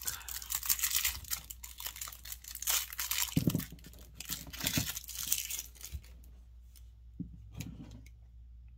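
Thin clear plastic wrapper crinkling and tearing as it is pulled open by hand, stopping about six seconds in; a few faint taps follow.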